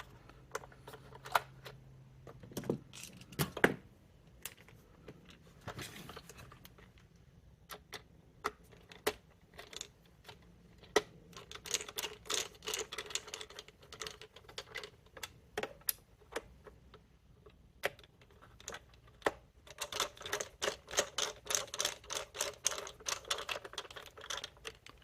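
Screws being driven into a plastic vacuum cleaner head housing with a hand screwdriver: two long runs of rapid light clicking, about halfway through and again near the end, with scattered single knocks of plastic parts being handled.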